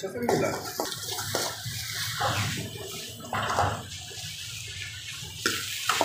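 Metal spatula stirring and scraping rice around a wok, a run of irregular scrapes over a steady hiss.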